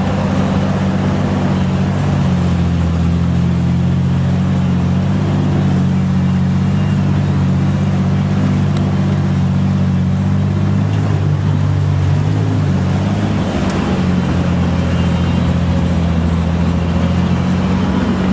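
Ford Bronco II's engine running steadily as the truck drives along a dirt trail. It holds a low, even drone, with a slight change in pitch about two-thirds of the way through.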